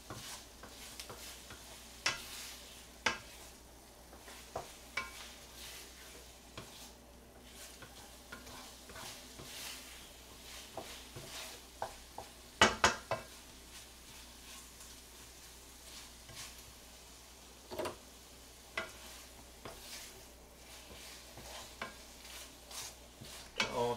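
Rice cakes stir-frying in a frying pan: a wooden spatula scrapes and knocks against the pan over a faint sizzle. The knocks come irregularly, with the loudest cluster about halfway through.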